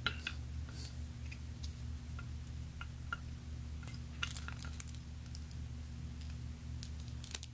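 Faint scattered clicks and light rustles from plastic sunglasses and their thin plastic protector film being handled, over a steady low hum.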